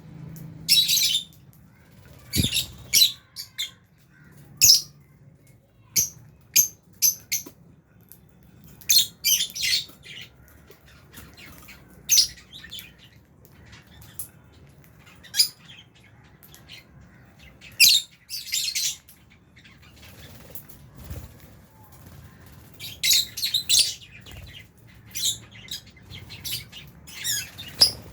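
A flock of lovebirds chirping: short, shrill, high-pitched calls in irregular clusters, some single and some quick runs of several, with brief quiet gaps between.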